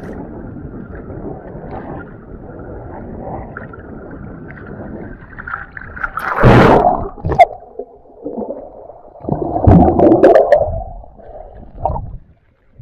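Sea water sloshing and gurgling against a camera held at the surface among small waves, muffled, with no sound above a fairly low pitch. There are two louder splashing surges, about six and about ten seconds in, as waves wash over it.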